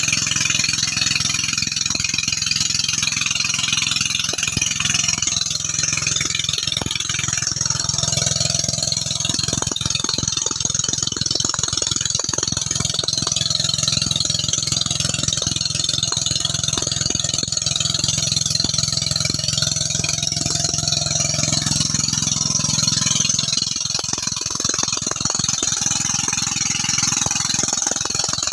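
Small Robin petrol engine running steadily while it drives a suction pump for gold dredging, with irregular knocks and rattles over its steady hum.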